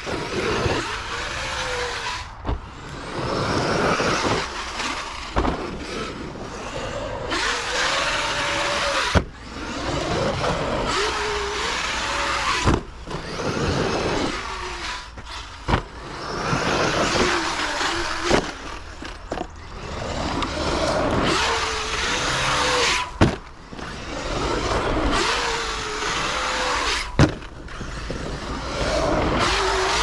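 Arrma Kraton 8S EXB RC truck driven hard on dirt: its brushless electric motor whines up and down in repeated bursts of throttle, over rushing tyre-and-dirt noise. Sharp knocks from landings and impacts cut in every few seconds.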